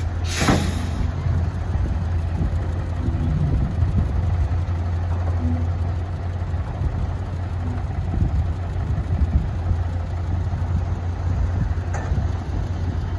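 Heavy diesel engine of a large earthmoving vehicle running steadily at a low idle, with a brief hiss about half a second in.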